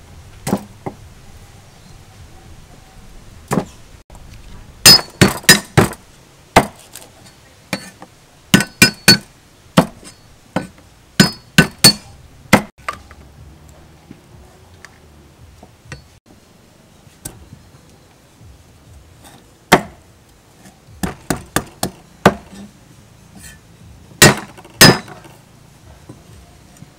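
Cleaver chopping on a thick round wooden chopping block: sharp knocks in irregular clusters of a few quick strokes, with pauses between them and a slight metallic ring on the hardest strokes.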